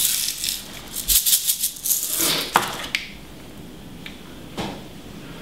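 Sugar sprinkles rattling in a small tub as it is shaken over a gingerbread man: a quick run of shaker-like rattles for about three seconds, then a few light clicks.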